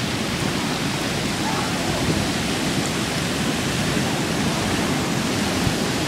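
Big ocean surf breaking and whitewater washing in: a steady, even rushing noise with no separate events.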